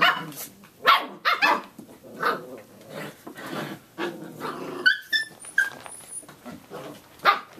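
A litter of six-week-old Samoyed puppies barking and yipping in rough play, with growly stretches between the barks. A few thin, high squeaks come at about five seconds in.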